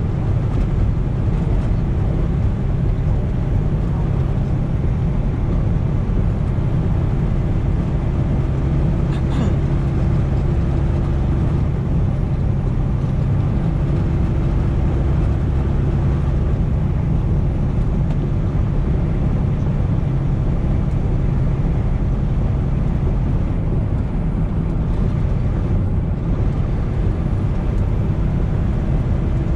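Semi-truck's diesel engine droning steadily with road noise inside the cab while driving.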